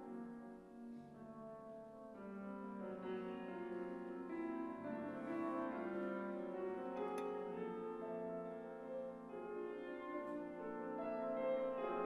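Clarinet and grand piano playing a contemporary chamber piece live, the clarinet holding long notes over the piano, growing louder near the end.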